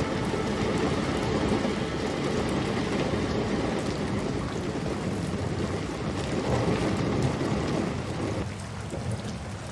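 Rain falling steadily, with a low rumble underneath. The rain eases off somewhat near the end.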